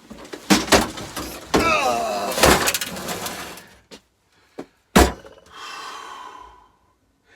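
Heavy knocks and clatter as things are shifted about on a workbench, with a scraping squeal about two seconds in and a last hard knock about five seconds in.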